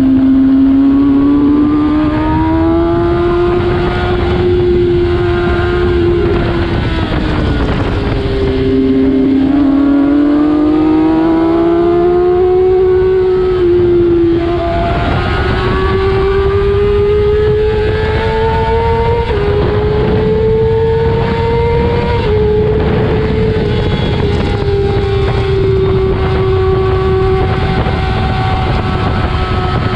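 Kawasaki ZX-6R inline-four sport bike engine running hard at high revs, its pitch climbing, easing off and climbing again, with sudden small pitch steps at gear changes. Wind buffets the microphone throughout.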